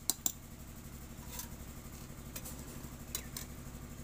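A steel spatula clinking against a steel kadhai while vegetables are stirred: a handful of sharp, scattered clinks, two close together at the start and a quick pair near the end, over a steady low hum.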